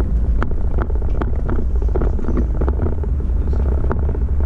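A vehicle driving slowly along a sealed track, heard as a steady low rumble with scattered sharp clicks and knocks.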